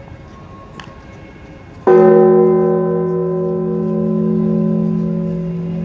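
A large, deep-toned church bell struck once about two seconds in, ringing on and slowly fading. Before the strike there is only a low crowd murmur.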